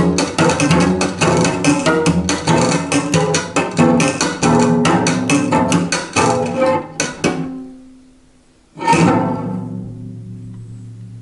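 Cello played by hand, the right hand rapidly striking and plucking across the strings in fast percussive strokes with low notes ringing underneath. The strokes die away about seven seconds in, and after a short pause one last struck chord rings out and slowly fades.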